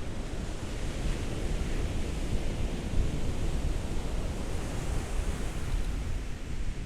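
Ocean waves breaking and washing up the shore: a steady rushing surf with a deep low rumble, swelling into a brighter hiss through the middle as a wave washes in.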